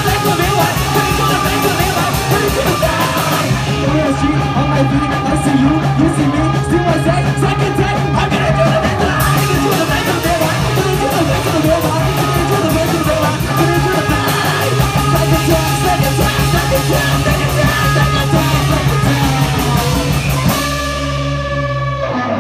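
Live punk rock band playing loud: distorted electric guitars, bass and a drum kit, with vocals. Near the end the drums stop and a held guitar chord rings on.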